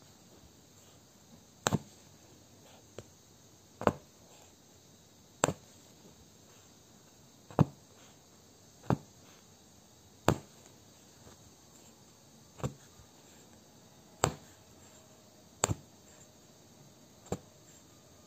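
Punch needle stabbing black yarn through fabric stretched taut in an embroidery hoop: a sharp tap with each poke, about ten of them at an uneven pace of one every one to two seconds.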